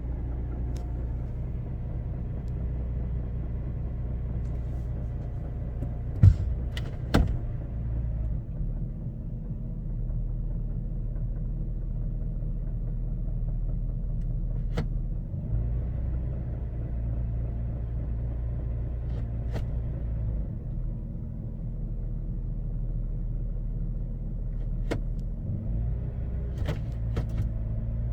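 2014 Toyota Tacoma's 4.0-litre V6 running steadily, with a handful of sharp knocks, the loudest about six and seven seconds in. The owner reports a knock or rattle on cold starts that persisted after a leaking muffler was replaced.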